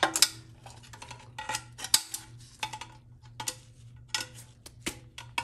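Intermediate clutch snap ring being worked into its groove in a GM TH400 transmission case with a screwdriver: irregular metallic clicks and scrapes, some with a brief ring.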